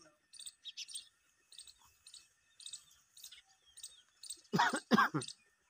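Small bird chirping in a steady series of short, high chirps, two or three a second. About four and a half seconds in come two louder, harsher calls about half a second apart.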